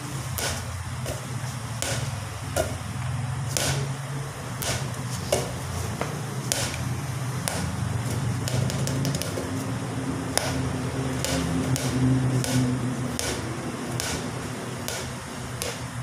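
Irregular light taps and clicks, several a second at times, over a steady low hum.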